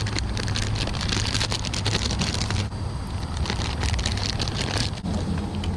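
Rapid small clicks and ticks of fishing tackle being handled while a new soft-plastic craw bait is rigged. They come in a run, pause briefly past the midpoint, then go on again, over a steady low hum.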